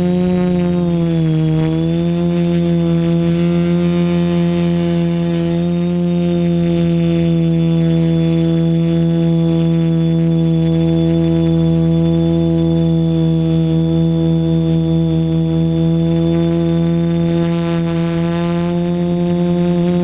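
DJI F450 quadcopter's motors and propellers humming steadily, heard from the camera mounted on the drone. The pitch dips briefly about a second in, then holds level.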